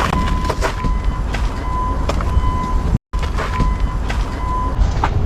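Urban outdoor background: a steady low rumble of traffic, with a thin high steady tone running through it and scattered light knocks. The sound cuts out completely for an instant about three seconds in.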